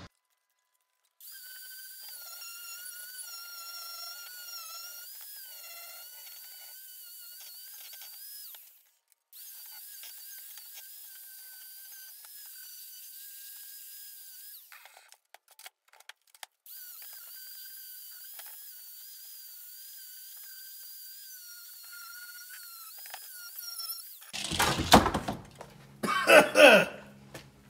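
Angle grinder running with a steady high-pitched whine against a steel bus bumper bracket, its pitch wavering under load, with a short break partway through. Near the end, loud knocks and clanks as the heavy steel bracket is handled on the wooden workbench.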